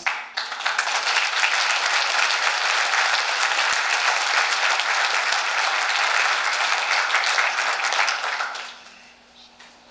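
An audience applauding steadily, dying away about a second before the end.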